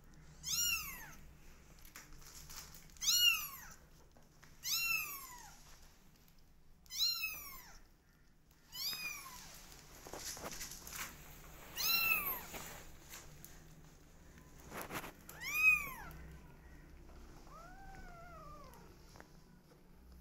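Kittens about three weeks old meowing, high-pitched calls that rise then fall, about seven loud ones a couple of seconds apart. A fainter, lower meow follows near the end.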